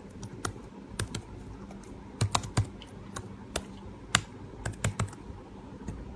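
Typing on a computer keyboard: a dozen or so irregular key clicks, bunched in the middle, over a faint steady low hum.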